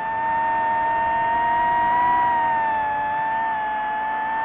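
DJI FPV drone's motors and propellers giving a loud, steady whine made of several close tones, as the four motors spin at slightly different speeds. The pitch rises a little about two seconds in and eases back down with the throttle.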